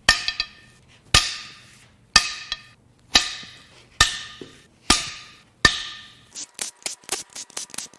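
Very tight Torx cylinder-head bolts on a Ford 4.0L SOHC V6 cracking loose one after another under a long breaker bar: about seven sharp metallic cracks, roughly one a second, each ringing briefly. Near the end comes a run of quick light clicks.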